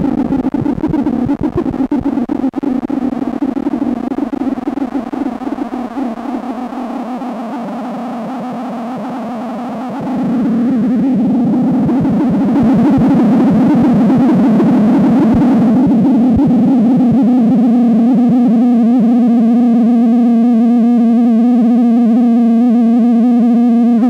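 Make Noise Strega synthesizer's oscillator voice sounding a continuous low drone, its pitch modulated by the built-in activation modulator. It is rough and crackly in the first half, gets louder about ten seconds in, and turns smoother and clearer in the last several seconds.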